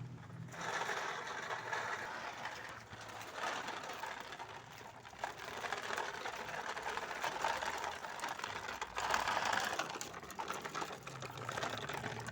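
A plastic toy truck rattling and whirring as it moves, a continuous mechanical clatter that comes and goes in loudness.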